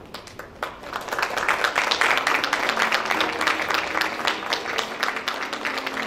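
Audience applauding: a few claps at first, swelling to full, dense clapping about a second in and holding steady.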